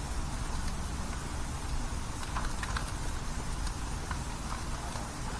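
Propane grill burning with burgers cooking on foil: a steady low rumble from the burners, with scattered light pops and ticks from the sizzling meat.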